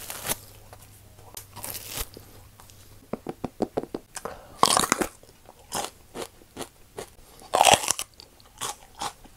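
Close-miked eating: chewing bread, then biting and chewing a raw green bell pepper, with short wet clicks of chewing and two loud crisp crunches, one about halfway and one about three-quarters of the way through.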